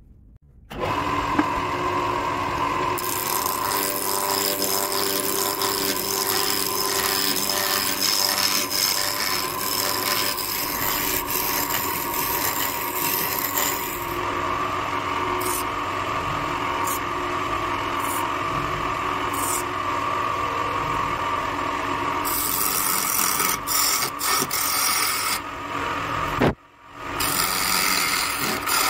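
Wood lathe starting up about a second in and spinning a square wooden blank while a hand-held turning tool cuts it round: a steady motor hum under a scraping, hissing cutting noise that comes and goes, breaking off briefly near the end.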